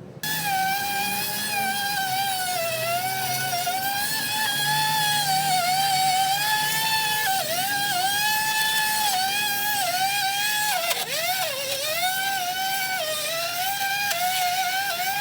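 Vacuum cleaner motor on a homemade grass cutter running at high speed with a high whine. Its pitch sags again and again as the motor takes load, most deeply about eleven seconds in.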